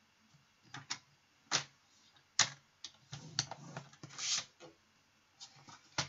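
Paper trimmer being used to score a sheet of cardstock: several sharp clicks of the blade and card, then short scraping passes of the scoring blade sliding along its track about three and four seconds in.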